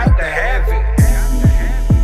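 Hip hop beat with deep 808 kick drums that drop in pitch. The tail of a rapped vocal line fades in the first second, and about a second in a hissing high-pitched layer comes in over the beat.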